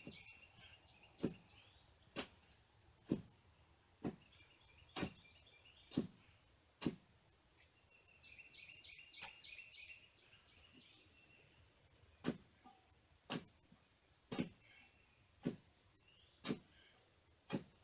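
Hammer blows at a steady pace of about one a second, stopping for a few seconds midway and then resuming. Birds chirp now and then over a steady, high insect drone.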